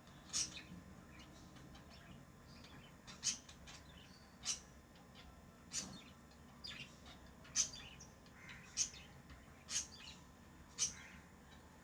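Lovebirds chirping: short, sharp, high-pitched chirps repeated about once a second.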